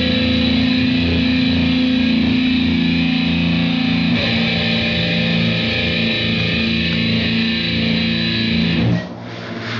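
Distorted electric guitar playing loud held chords, changing chord about four seconds in, then cutting off shortly before the end.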